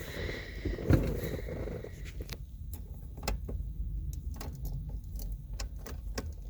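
Someone moving about inside an old van: a thump about a second in, then a run of sharp clicks and light knocks over a low rumble.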